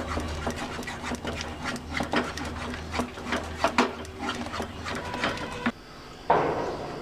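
A wooden spatula scrapes and taps around a nonstick pan in quick, irregular strokes, stirring thick white sauce to keep it free of lumps. The stirring stops near the end, followed by a brief rustle.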